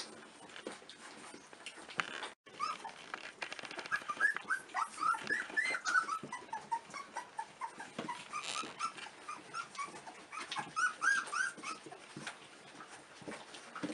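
A litter of very young puppies squeaking and whimpering, many short high cries overlapping in quick runs, with soft rustling and scrabbling underneath.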